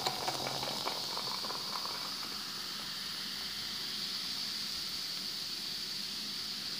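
Cola poured from a can into a glass, fizzing with a steady hiss as the foam rises, with a few small splashes and clicks early on.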